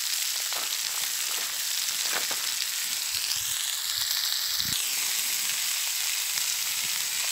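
Chicken pieces sizzling steadily as they fry in a pan over an open wood fire.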